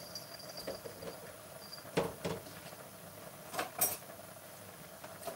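Light kitchen knocks and clinks, a pair about two seconds in and another pair near four seconds in, over a steady faint hiss.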